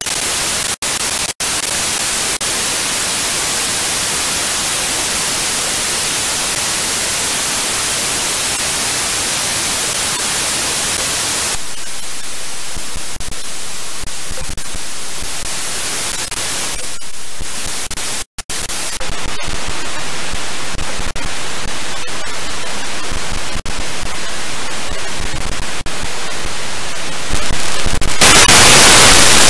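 White noise generated by a software synthesizer, a steady hiss across the whole range. Its tone thins for several seconds from about twelve seconds in, with a brief drop-out, and it turns louder and brighter near the end.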